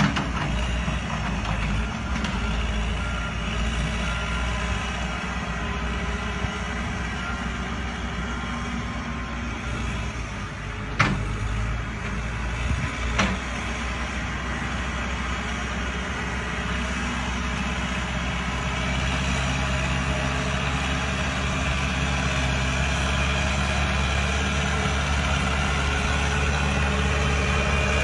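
Volkswagen pickup truck's engine running steadily while the truck crawls along a trench, its note a little louder in the second half. Two sharp knocks, about two seconds apart, near the middle.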